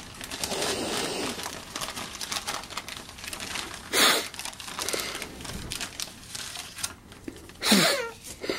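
A countdown gift bag and its paper contents crinkling and rustling as a child opens it, with two louder, sudden sounds about halfway and near the end.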